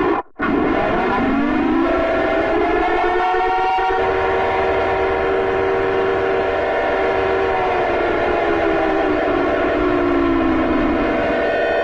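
Civil-defence air-raid siren sounding an attack warning. After a brief cut-out at the start it slowly rises in pitch, holds a long wail, glides down, and begins rising again near the end.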